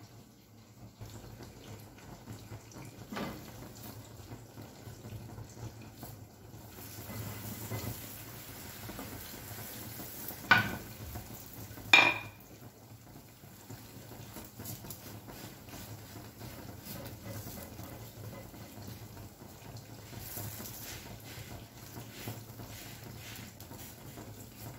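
Quiet kitchen handling sounds as flatbread dough is laid in a frying pan on a gas stove, with two sharp metallic clanks about ten and twelve seconds in, the second ringing briefly.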